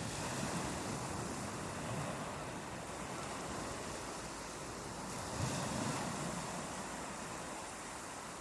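Ocean surf washing onto a beach: a steady rushing wash of waves that swells a little about five seconds in.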